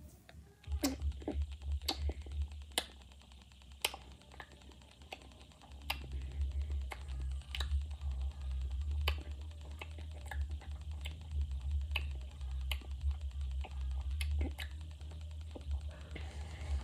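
Close-up mouth sounds of a Warheads Extreme Sour hard candy being sucked: sharp, irregular wet clicks about once a second over a low rumble.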